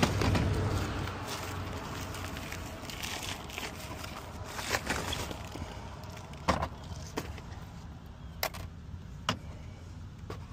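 Plastic bag rustling as a laminate floor cutter is pulled out of it, loudest over the first couple of seconds, then several sharp clicks and knocks of the cutter's metal parts being handled and set down.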